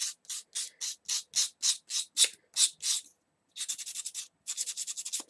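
Sandpaper rubbing in quick strokes along the edge of a paper-covered wooden clothes peg, about four strokes a second, sanding away the overhanging paper. After a short pause about three seconds in, faster, shorter strokes follow.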